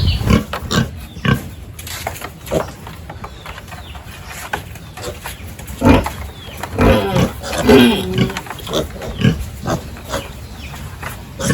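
Pigs grunting and squealing, with scattered sharp knocks and clatter between the calls; the loudest cluster of calls comes a little past the middle.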